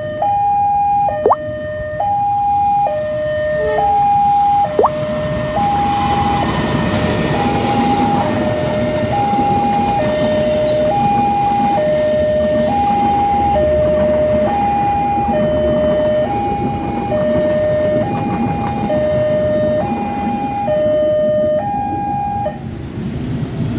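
Railway level-crossing warning alarm sounding an alternating high-low two-tone signal, each tone lasting just under a second, as a passenger train rolls past with a steady rumble of wheels on rail. The alarm stops about 22 seconds in, as the last coaches clear the crossing.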